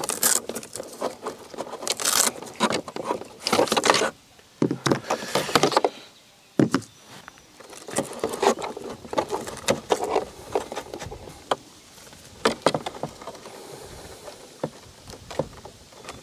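Hands working in the battery compartment of a Traxxas Spartan RC boat hull while swapping its LiPo battery packs: irregular clicks, knocks and rattles of plastic, with a few longer rustles.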